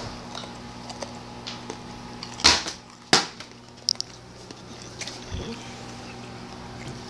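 Two sharp knocks about half a second apart, a small click and later a soft low thump, over a steady low hum.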